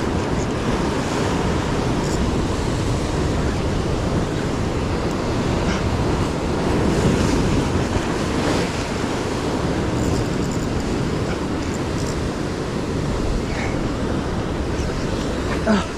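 Ocean swell surging and breaking against a rock ledge, with wind buffeting the microphone; a wave crashes up into spray about halfway through.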